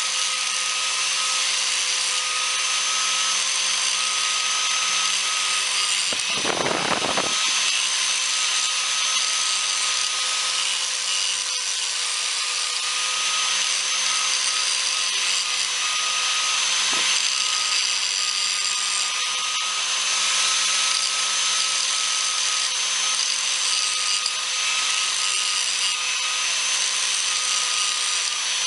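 Handheld electric grinder running steadily against the steel of a jack stand, stripping paint from the metal to prepare it for welding, with one brief harder contact about seven seconds in.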